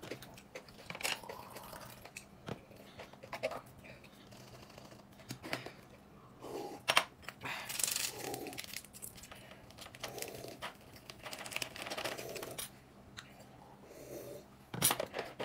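People eating at close range: irregular chewing and crunching with crinkling and small clicks from handling food.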